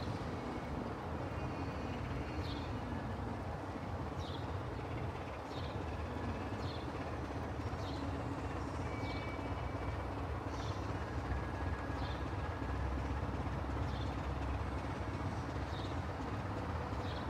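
A Class 24 diesel locomotive's Sulzer six-cylinder engine running steadily at low revs as the locomotive creeps along, a continuous low rumble. A bird gives a short high chirp every second or two.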